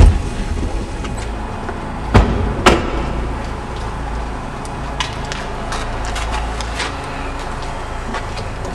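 Two car doors slam shut about half a second apart, some two seconds in, over a low steady rumble, after a thud at the very start. A few faint taps follow, footsteps on the concrete floor of a parking garage.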